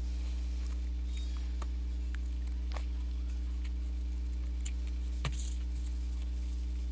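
Scissors cutting through a cardstock star, a scattering of faint snips, with one sharper click about five seconds in, over a steady low electrical hum.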